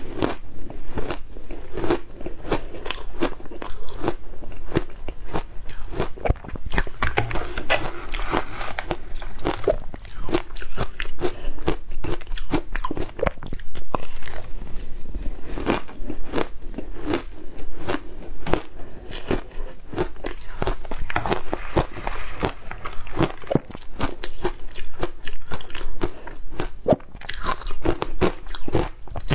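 Ice being bitten and chewed: dense, irregular crunching that goes on without a break.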